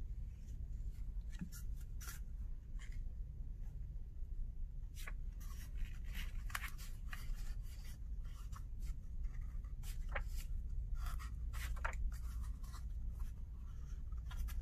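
A glue stick rubbing across construction paper, then the paper being handled and rolled around a cardboard toilet-paper tube: soft, scattered rustles and scrapes over a low, steady hum.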